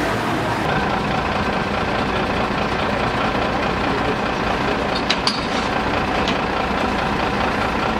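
Heavy truck's diesel engine idling steadily, with a few short clicks about five seconds in and once more a second later.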